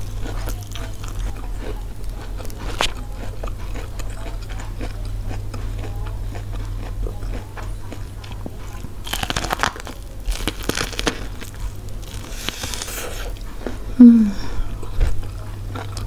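Close-up biting and chewing of steamed sweet corn on the cob: kernels crunch and pop as they are bitten off, with small wet clicks throughout and louder bursts of bites about two thirds of the way in. A brief low sound falling in pitch comes about 14 s in, and a steady low electrical hum runs underneath.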